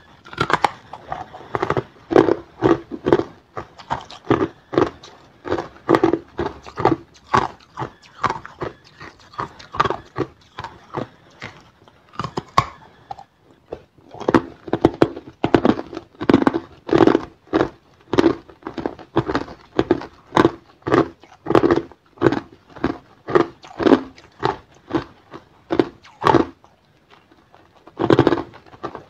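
Hard clear ice being crunched between the teeth: a steady run of sharp crunches, about two a second, with a short pause about halfway through and another near the end.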